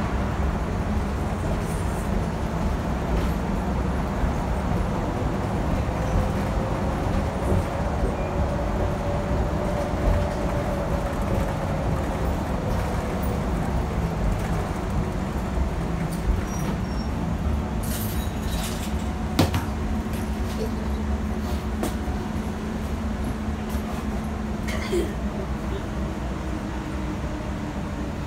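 A 2019 New Flyer Xcelsior XD60 articulated diesel bus running along, heard from on board: a steady engine and road rumble, with a faint whine that rises and then falls in pitch about a third of the way in. A few short rattles or clicks come about two-thirds of the way through.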